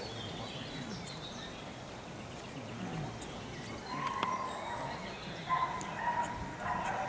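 Open-air background noise, then from about four seconds in a string of short, steady, high-pitched animal calls, with a sharp click among them.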